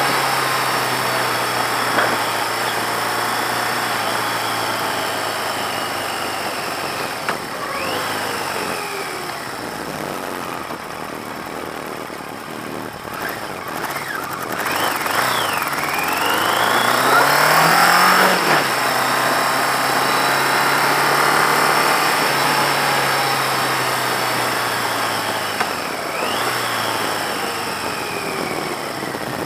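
1982 Yamaha XJ650's air-cooled inline-four engine running under way, its pitch sinking slowly as the bike rolls off. It climbs as the bike accelerates about halfway through and drops sharply at a gear change. Wind rushes over the microphone throughout.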